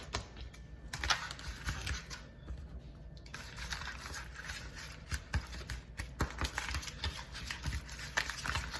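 Raw dog food (ground meat, eggs and a little kibble) being stirred together in a bowl, making irregular clicks and rattles.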